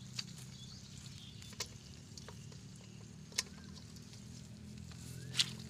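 Four sharp, irregularly spaced clicks as small fish are picked from a net and dropped into an aluminium bowl, over a steady low hum. Faint bird chirps now and then.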